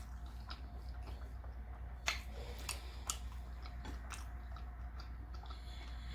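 Close-up chewing and biting on a chicken taco: scattered wet mouth clicks and small crackles, a couple of sharper ones about two and three seconds in, over a steady low hum.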